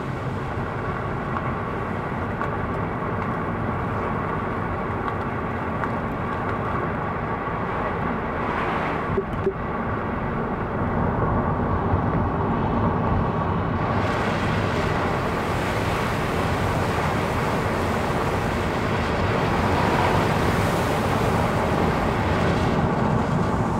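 Car driving along a wet, flooded road, heard from inside the cabin: a steady rumble of engine and road noise, with a brighter hiss of tyres on water coming in about halfway through.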